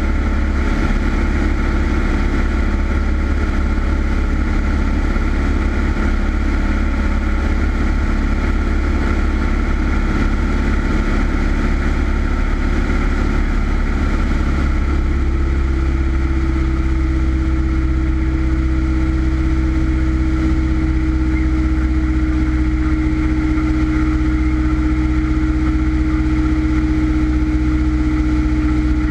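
Single-engine Cessna's piston engine and propeller droning steadily, heard from inside the cockpit. About halfway through, a low hum in the drone grows stronger and holds, easing slightly lower in pitch near the end.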